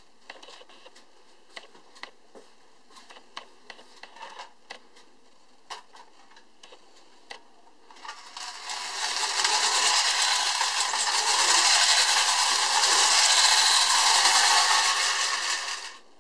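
Tin friction toy's flywheel motor whirring loudly. It builds up about eight seconds in, holds steady for about seven seconds and stops suddenly near the end. Before that come light clicks and taps of the tin toy being handled.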